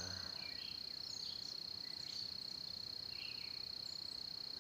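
Crickets trilling in one steady high note, with a few faint short chirps scattered over it.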